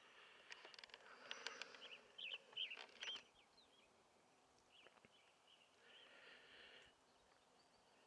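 Quiet meadow ambience with a few faint, short high chirps about two to three seconds in, and a soft buzzing hiss around six seconds in.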